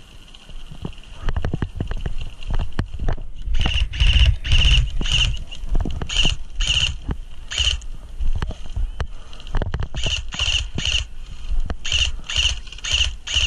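Footsteps on dirt and dry grass with clothing and gear rustling, about two steps a second. The steps come in two runs with a pause of a second or two between them.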